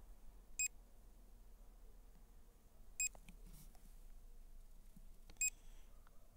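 Short electronic warning beeps from the drone's controller app, three in a row spaced about two and a half seconds apart, each a single high tone with overtones.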